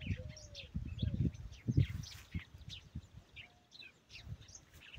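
Many small birds chirping in a tree, short high calls overlapping throughout, with irregular low rumbling thumps on the microphone, loudest a little under two seconds in.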